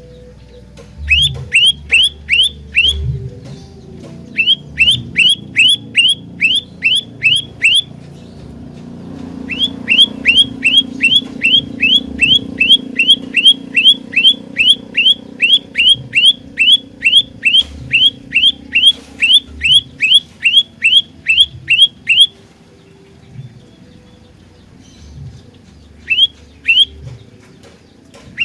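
Olive-backed tailorbird (prenjak lumut) singing: loud, sharp descending notes repeated about three a second in runs, the longest lasting over ten seconds, with pauses between runs and two last notes near the end.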